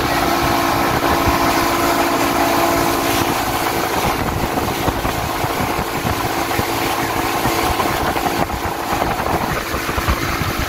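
A speedboat's engine drones steadily while the boat runs at speed, over the rush of water along the hull. Wind buffets the microphone throughout.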